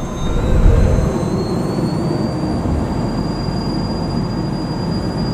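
Cessna Citation Mustang's twin turbofan engines heard from inside the cabin, spooling up: a steady roar and deep rumble with a thin whine that rises in pitch over the first two seconds, then holds steady.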